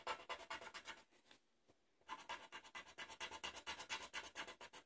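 Green felt-tip marker scratching on paper in quick back-and-forth colouring strokes, about eight a second; the strokes stop for about a second just over a second in, then start again.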